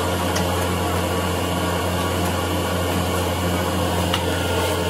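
Steady drone of a cupola furnace's air blower, a constant low hum under a rushing noise, while the furnace is tapped for molten iron. A few faint clicks sound near the end.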